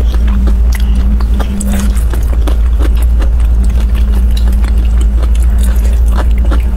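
Close-miked chewing and mouth sounds of someone eating dumplings: many small wet clicks and smacks. A steady low hum runs underneath.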